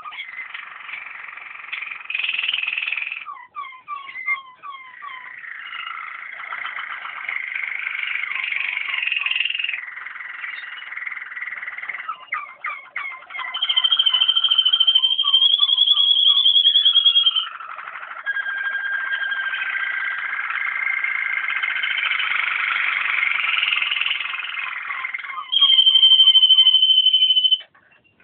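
Waterslager (Malinois) canary song: a long, continuous run of rolls and trills, broken by rapid clicking passages. A long, clear high rolled phrase comes about halfway through, and another near the end, before the song stops.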